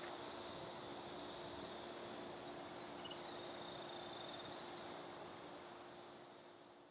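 A departing GO Transit commuter train moving away, heard as a steady rumble with a constant low hum that grows slowly fainter toward the end. Midway, a bird chirps a short run of high whistled notes.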